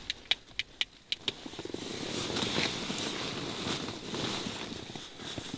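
A quick run of about six sharp, light clicks, then a longer stretch of fabric rustling as a person shifts on a nylon sleeping bag.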